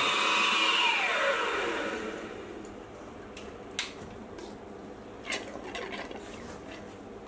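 Mini milling machine spindle whining, then spinning down with a falling whine about a second in until it stops. Afterwards a faint steady hiss with a couple of sharp ticks.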